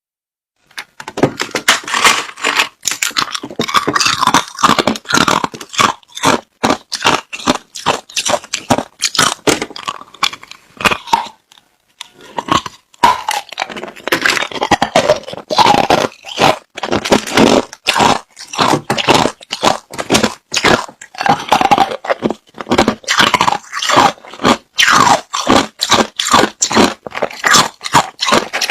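Close-up crunching of clear, hard crushed ice being bitten and chewed, a rapid run of crisp crunches with a brief pause about twelve seconds in.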